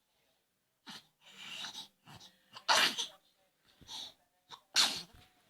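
A person sneezing twice. Each loud sneeze follows a sharp drawn-in breath, the first about three seconds in and the second near the end.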